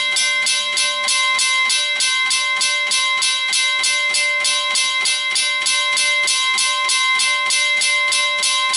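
Western Cullen Hayes mechanical railway crossing bell ringing continuously, its striker hitting the gong at about four strikes a second over a steady ringing tone.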